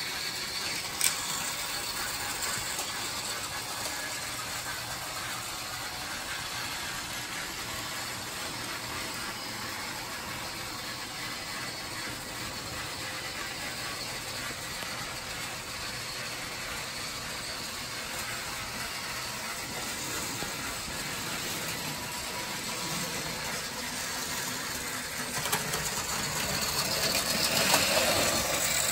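Battery-powered TrackMaster toy engine's small geared motor whirring steadily as it pulls coaches along plastic track, with a sharp click about a second in, growing louder near the end.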